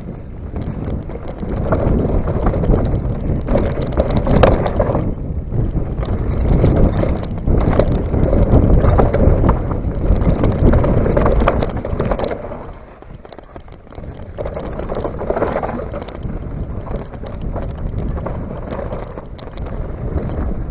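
Mountain bike ridden fast down a rough dirt trail: tyres rolling over dirt and stones, with the bike and camera rattling and knocking over the bumps and wind buffeting the microphone. The noise eases briefly about two-thirds of the way through, then picks up again.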